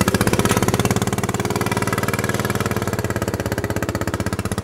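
3.5-horsepower Briggs & Stratton single-cylinder engine in a half-scale John Deere D replica, just started and running with a rapid, even exhaust beat. A long straight pipe, wrapped around behind the radiator, gives this very small engine a big tractor sound.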